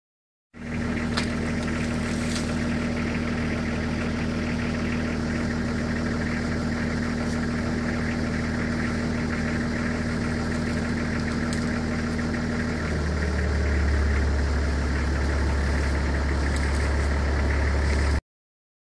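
Vehicle engine idling steadily. About thirteen seconds in its hum drops lower and gets a little louder. A few faint sharp clicks are heard over it.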